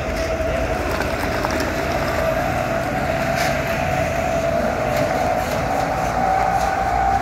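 Steady heavy engine drone with a continuous whine that creeps slightly higher near the end, over a low rumble of wind on the microphone.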